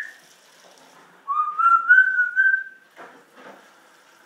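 African grey parrot whistling: a short rising whistle ends just at the start, then about a second later comes one long, clear whistle of about a second and a half that rises gently in pitch with a slight waver.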